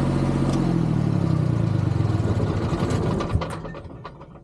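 Three-cylinder diesel generator engine shut off: it runs steadily, then its note falls as it winds down, gives a knock about three seconds in and stops, leaving only faint sound.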